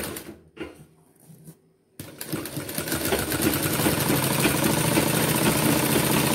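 Sewing machine stitching a folded sleeve hem. It pauses for about two seconds with only faint handling sounds, then starts abruptly and runs steadily.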